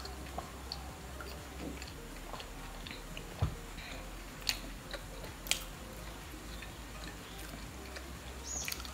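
Faint mouth noises of people chewing soft submarine-sandwich bread, with a few small sharp clicks and smacks scattered through, about a second apart near the middle.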